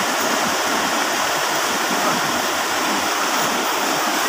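Fast river water rushing steadily over and around boulders, a continuous, even rush.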